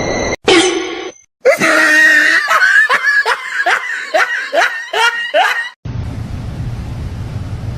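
A short falling squeal, then a run of quick rising laughing calls, a little over two a second. The calls stop abruptly and are followed by a steady low hum.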